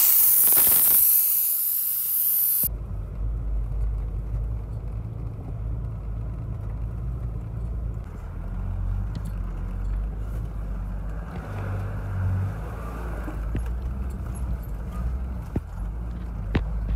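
Air hissing loudly out of a 4WD tyre through a deflator gauge as it is let down to 20 psi, cutting off abruptly a few seconds in. Then a four-wheel-drive's engine and road rumble heard from inside the cabin as it drives along the track.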